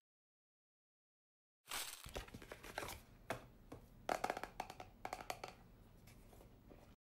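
Hands handling a white plastic skincare container close to the microphone, starting about two seconds in: a run of clicks, taps and crinkling rustles.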